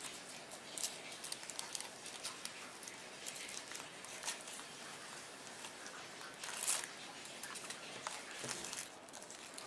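Foil wrapper of a Kinder Surprise chocolate egg crinkling as small hands handle and tear at it: irregular small crackles, with a louder burst about two-thirds of the way through.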